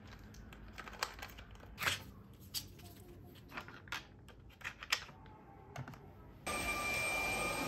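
Light clicks and taps of small plastic tiles being sorted and slotted into a perpetual block calendar, scattered and irregular. Near the end a steady noise with a thin whine cuts in abruptly.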